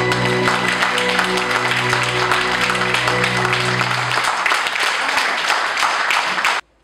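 Audience applauding over the last sustained notes of slow music. The music fades out about four seconds in, and the clapping goes on alone until it cuts off abruptly near the end.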